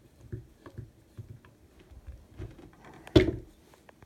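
Scattered light clicks and taps of small screws and a screwdriver being handled while the screws are set into a Marlin 336 rifle, with one sharp knock about three seconds in.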